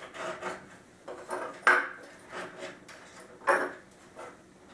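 Wooden chair parts and steel cable being handled: a run of light knocks and clinks, with two sharper knocks, one a little under two seconds in and one about three and a half seconds in.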